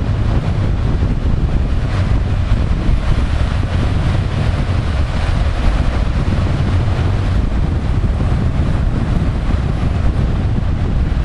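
Wind buffeting the microphone in a steady low rumble, over the hiss of ocean surf breaking on the beach.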